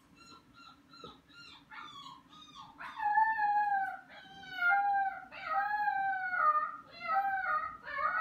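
Pembroke Welsh corgi puppy crying: short, faint, high cries at first, then from about three seconds in a run of louder, drawn-out cries, each under a second and falling in pitch. He is crying because he doesn't want to be left alone in his crate.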